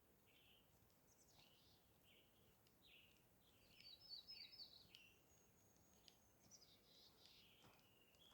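Faint birdsong: a run of short high chirps and warbles, a quick trill about four seconds in, and a thin high whistle held for about a second and a half.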